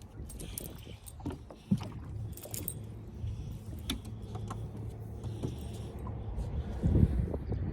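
Clicks, knocks and rattles of fishing gear being handled in a boat over a low steady hum, with a sharp thump about a second and a half in and a louder thump near the end.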